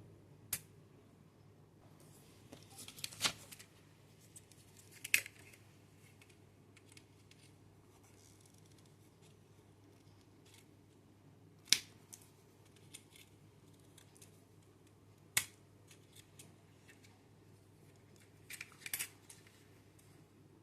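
A handful of sharp clicks and snips, spaced several seconds apart, with faint handling noises between them; no grinder is running.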